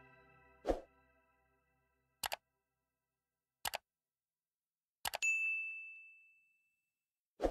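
The last note of the outro music dies away, then a series of sharp clicks comes about every second and a half. About five seconds in, one click is followed by a single high, bell-like ding that rings for about a second and a half.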